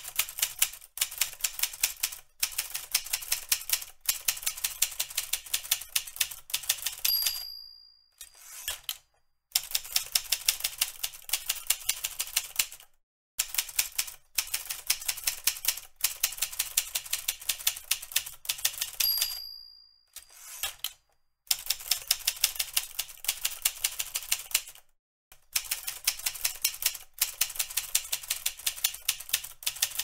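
Manual typewriter typing: rapid runs of clacking key strikes broken by short pauses. The end-of-line bell dings twice, about seven and nineteen seconds in.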